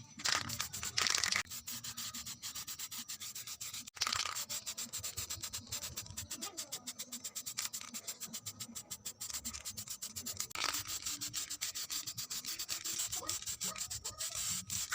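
Sandpaper being rubbed by hand in quick, repeated back-and-forth strokes, with a few abrupt jumps in the sound.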